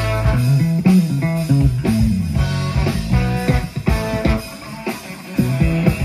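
Live rock band playing an instrumental passage: electric guitar, bass guitar, drums and trombone. The low end drops away for a moment about five seconds in.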